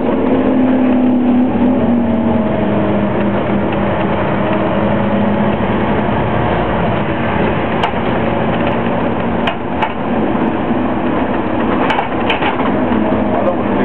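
Scania OmniCity double-decker bus under way, heard from inside on the upper deck: steady diesel engine and road noise, the engine note dropping about a second and a half in. Several sharp rattles or knocks come in the second half.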